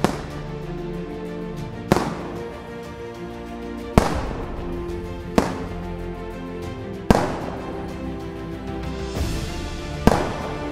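Hand-held black-powder salute guns (Böller) fired one at a time in a ragged series: six sharp blasts, each trailing off in a short echo, about one and a half to three seconds apart. Background music plays under the shots.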